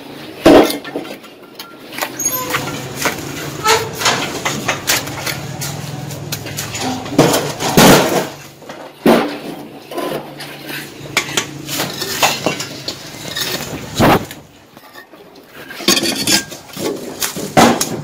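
Steel bricklaying trowel scraping mortar and tapping hollow clay bricks as they are laid: irregular clinks and scrapes, with several sharp, louder knocks as bricks are struck into place.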